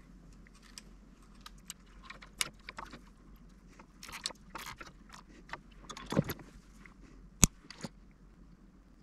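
Small clicks and rustles of fingers handling wires, connectors and plastic parts inside an opened RadioMaster TX16S radio transmitter case, with one sharp click about seven and a half seconds in.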